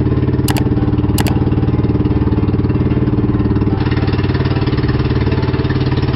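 Pumpboat's engine running steadily under way, a loud, even drone. Two short sharp clicks sound about half a second and a second in, and the rush of spray grows louder a little under four seconds in.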